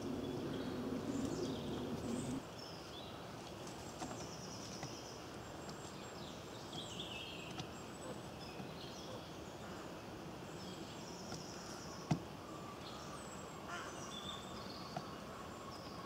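Small songbirds chirping and singing in the background. A low steady hum stops abruptly about two seconds in, and there is a single sharp tap about twelve seconds in.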